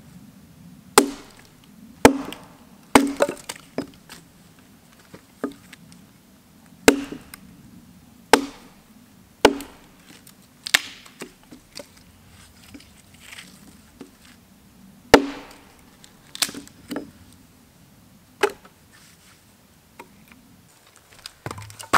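Hultafors carpenter's axe chopping and splitting a small piece of wood on a log: about a dozen sharp chops at irregular intervals, some followed by quick lighter knocks. There is a pause in the middle, and the loudest chop comes about fifteen seconds in.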